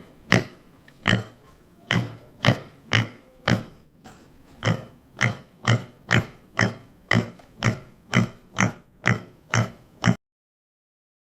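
Pig grunting in a steady run of short grunts, about two a second, that cuts off suddenly near the end.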